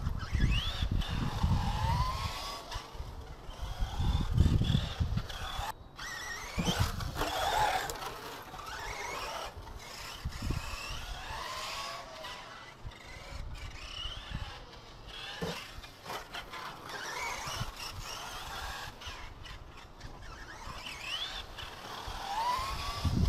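Tekno SCT410 RC short course truck driving laps, its electric motor whining up and down in pitch as it accelerates and slows, with tyres squealing and scraping on asphalt. Bursts of low rumble come near the start, about four seconds in and near the end.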